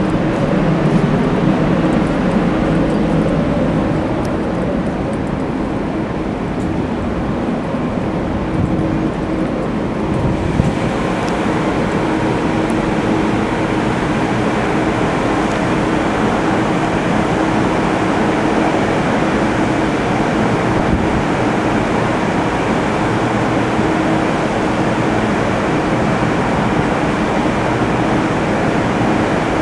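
Steady drone of a container ship's machinery heard from its deck, a constant rushing noise with a few held hum tones over it.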